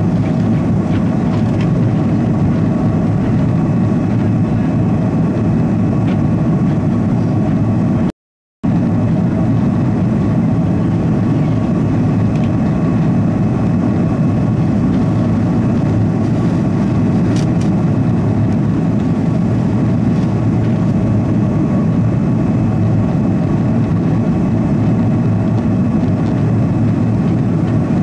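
Airbus A330-200's General Electric turbofan engines and airflow heard inside the cabin during the climb after takeoff: a loud, steady noise with a few faint held tones. The sound cuts out completely for about half a second around eight seconds in.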